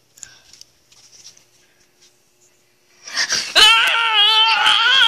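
A voice wailing on a high, wavering pitch, like crying. It starts suddenly about three seconds in and is loud, after faint rustling before it.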